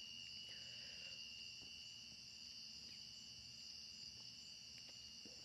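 Faint, steady chorus of night crickets, a continuous high-pitched trill with no breaks.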